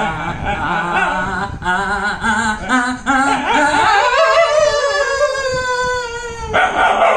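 A dog howling along with a man singing held notes. The man's voice steps between pitches while the dog's wavering howl sits above it. From about four seconds in the dog holds one long howl that slowly falls in pitch. Near the end the man's singing comes back.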